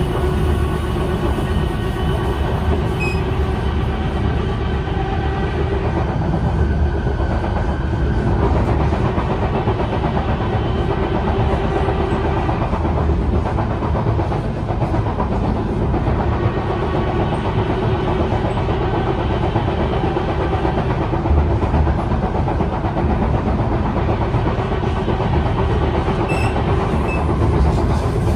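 Kawasaki C151 metro train running at speed, heard from inside the carriage: a continuous rumble of wheels on rail with the steady hum of its traction motors.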